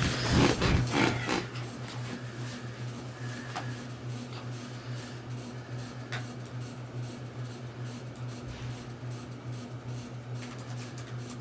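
Fabric rustling for about the first second and a half, then scattered soft clicks of typing on a laptop keyboard, growing more frequent near the end, over a steady low electrical hum.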